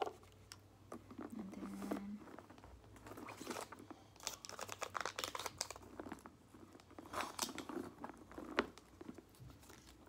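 Hands rummaging through a handbag: irregular rustling and crinkling of the items inside, with small clicks as things are moved and pulled out.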